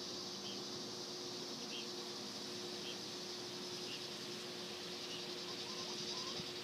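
Summer garden ambience: a steady high-pitched insect drone with short chirps about once a second, over a steady low hum.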